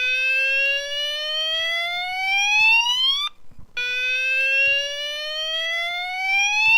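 Fire alarm sounder sounding a slow-whoop evacuation tone: two long sweeps rising from low to high pitch, each about three and a half seconds, with a brief pause between them.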